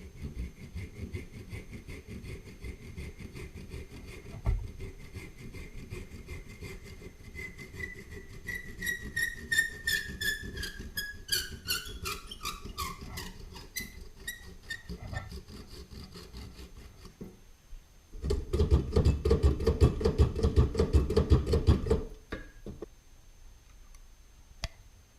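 Homemade copper and aluminum train whistle sounding a tone that slides down in pitch over several seconds, over a low rumble. About three-quarters of the way through comes a loud low rumble lasting about four seconds.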